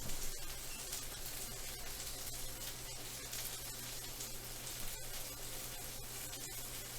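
Cheeseburger patties sizzling steadily in a frying pan on the stove, with faint scattered crackles.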